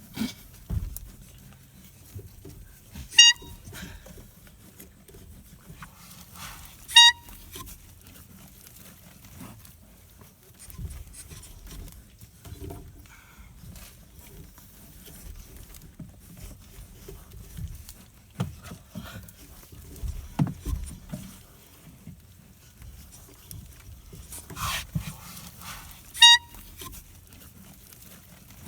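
A bike horn honked by a goat: three short honks, about 3 s, 7 s and 26 s in, with long gaps between. Dull knocks and rustling fall in between.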